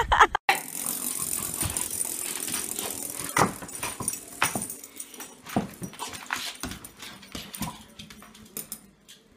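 A dog making short barks, about one a second from about three seconds in.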